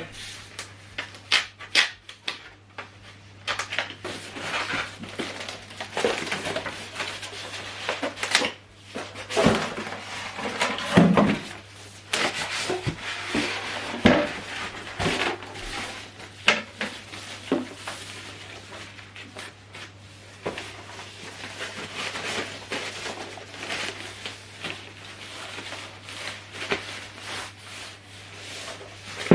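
Subwoofer being unpacked by hand: cardboard and packaging rub and rustle, with scattered knocks and taps as it is handled, over a steady low hum.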